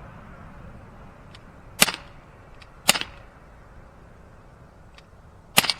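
Umarex Glock 19 CO2 BB pistol firing three sharp shots: two about a second apart, then a third nearly three seconds later. Faint light ticks fall between them.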